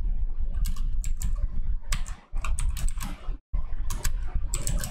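Typing on a computer keyboard: clusters of quick keystrokes with short pauses between them, over a steady low hum.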